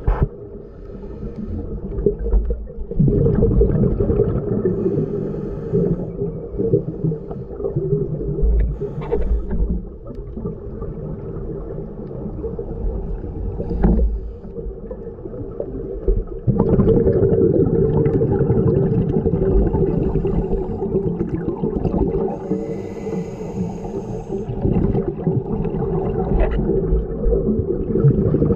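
Muffled underwater sound of a scuba diver breathing through a regulator, with exhaled bubbles gurgling past the camera housing and louder surges as breaths come and go.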